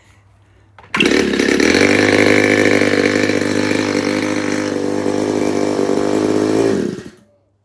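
A 15cc petrol model-aircraft engine with CDI ignition starts about a second in and runs steadily with its propeller turning, then dies out near the end. The owner puts its stalling down to a throttle that is not set right.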